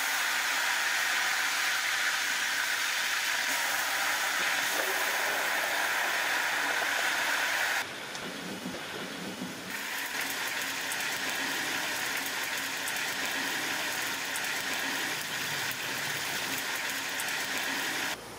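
Vegetables sizzling in hot oil in a large metal cooking pot: a steady loud hiss with fine crackles. It drops away for about two seconds near the middle, then comes back.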